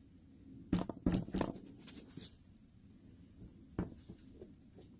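Handling noises from a sneaker being picked up and turned over: a cluster of short knocks and rustles about a second in, then a single sharp click near four seconds.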